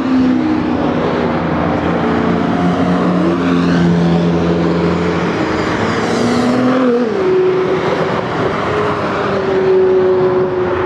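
Several supercar engines running together as cars drive by, their pitches stepping up and down and overlapping.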